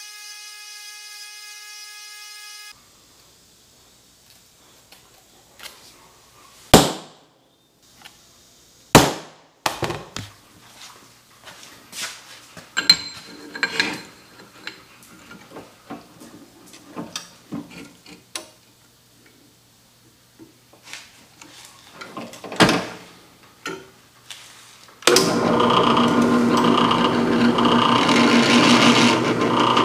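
Bench grinder motor running steadily, then metal clanks, knocks and clicks as a small metal part is handled and clamped in a drill press vise. About 25 s in, the drill press starts and drills into the metal part, loud and steady with a pulsing chatter just under twice a second.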